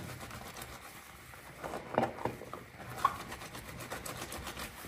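Soapy wet cloth being scrubbed and squeezed by hand in rubber gloves at a sink: a steady run of soft rubbing and squelching, with a few louder strokes about two and three seconds in.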